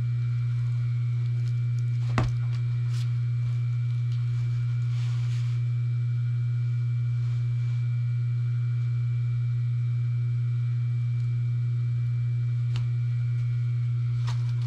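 Electric motor humming steadily at a low pitch, with a single sharp knock about two seconds in and a few soft rustles of stiff sheets being handled.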